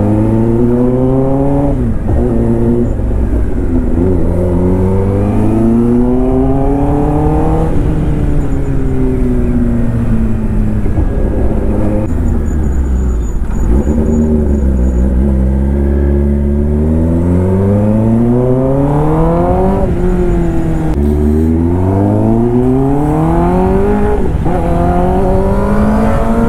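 Kawasaki ZX-10R's inline-four engine through an Arrow aftermarket exhaust, accelerating hard: the pitch climbs, drops sharply at each upshift and climbs again. It winds down and runs low about eight to sixteen seconds in, then pulls through several more quick upshifts near the end.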